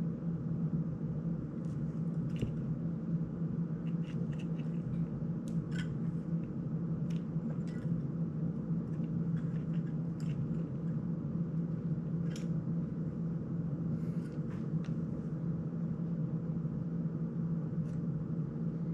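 Small scattered clicks and ticks of a cinewhoop FPV drone's frame and prop guards being handled and worked on by hand, over a steady low room hum. The clicks stop about three seconds before the end.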